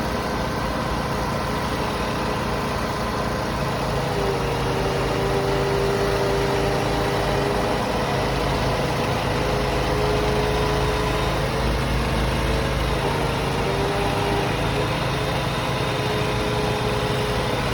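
Large engine of a tree-removal crane running steadily, its pitch sagging briefly about four seconds in and again around thirteen seconds.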